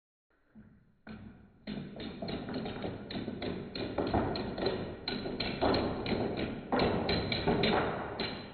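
Padlocks toppling one after another in a domino run: a quick, uneven series of metal knocks and thuds, several a second, starting faintly about a second in and growing louder.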